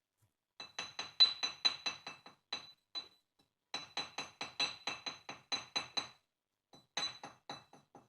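Rapid light taps of a metal masonry tool on brick, each with a clear ringing note, in three runs of about five taps a second. They are the sound of a wedge brick of a fireplace arch being tapped down into its mortar bed.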